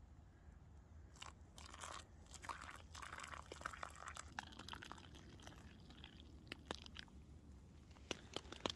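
Faint, irregular crunching and crackling close to the microphone, beginning about a second in.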